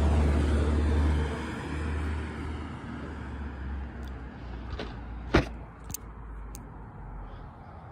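A car driving past, its low rumble loudest at the start and fading away within about two seconds. A sharp click comes about five seconds in, with a few lighter ticks around it.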